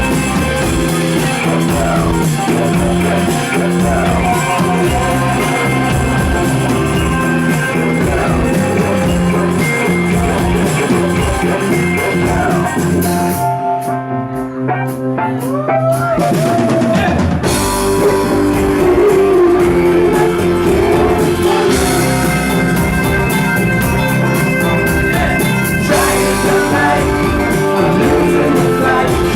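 Rock band playing live: drum kit, guitars and bass. About 13 seconds in the drums drop out for a few seconds, leaving sustained chords and a gliding note, then the full band comes back in.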